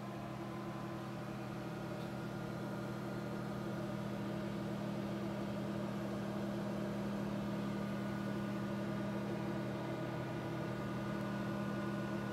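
Steady hum of laser-lab equipment running: a low droning tone with fainter higher tones over an even hiss.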